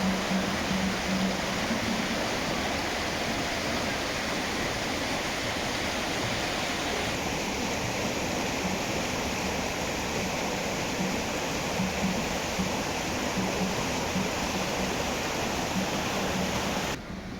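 Water rushing steadily from a spring-fed stream or cascade. It drops suddenly in level and loses its hiss near the end.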